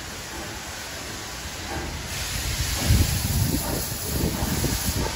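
Steam tank locomotive starting a train, running bunker-first. Steam hisses from about two seconds in, and from about three seconds in a run of heavy exhaust beats comes in as it gets under way.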